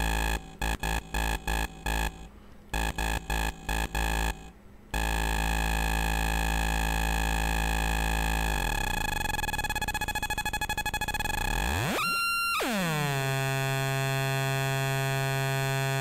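Homemade dual 555-timer square-wave oscillator circuit buzzing as its potentiometers are turned in a frequency sweep. The tone stutters on and off for the first few seconds, then holds a steady low buzz. From about the middle its pitch glides, jumps up high and falls back to a steady buzz near the end.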